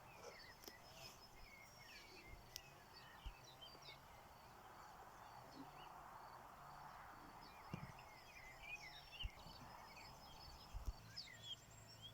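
Faint outdoor ambience of small birds chirping: many short, high calls scattered throughout, over a soft steady hiss, with a few brief low knocks.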